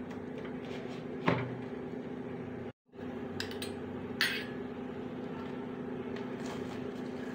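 A metal spoon knocking twice against a tawa as a paratha cooks on it, sharp clicks about a second in and again about four seconds in, over a steady low hum. The sound cuts out briefly just before three seconds.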